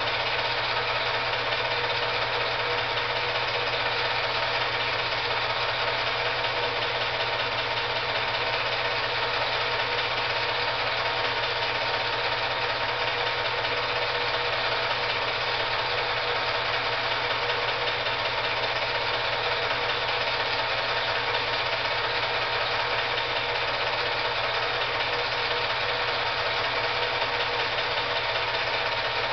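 8mm film projector running, a continuous, unchanging mechanical whir with a few steady tones in it.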